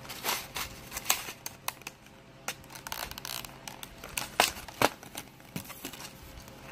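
Clear plastic package of a Helicoil thread-repair kit being opened and handled: irregular sharp clicks and crinkles of stiff plastic.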